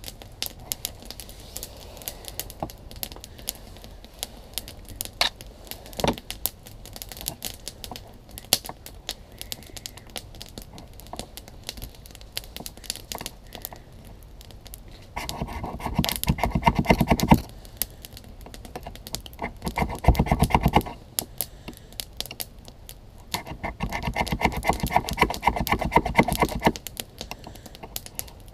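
Sparse light scrapes and clicks, then a knife's sharp 90-degree spine scraped rapidly down a ferrocerium rod in three loud bursts of two to three seconds each, about 15, 19 and 23 seconds in.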